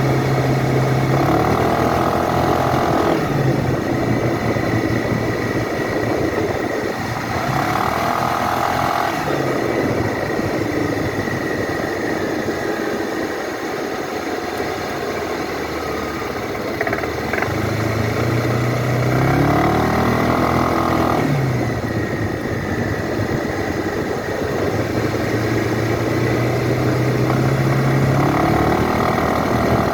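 2012 Suzuki Burgman scooter engine idling and revving up about four times, each a rising sweep that falls back to idle. It runs with the knocking sound under acceleration that the owner is recording.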